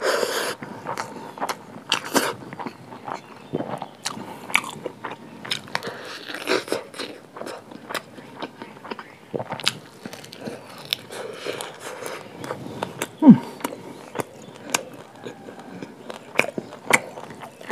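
A person eating close to the microphone: biting and chewing, with crunching and many sharp wet mouth clicks. There is one louder, short falling low sound a little past halfway.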